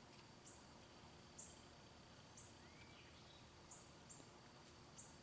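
Faint outdoor ambience of insects: short, high chirps about once a second over a thin, steady high hum, with one faint bird-like note about three seconds in.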